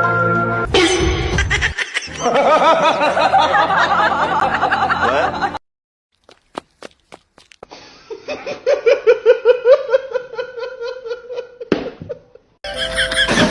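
People laughing in quick, repeated bursts, in two stretches broken by a sudden near-silent gap that holds a few sharp clicks.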